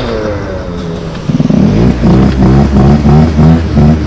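Small scooter engine idling, then revved in quick repeated throttle blips, about three a second, from a little over a second in.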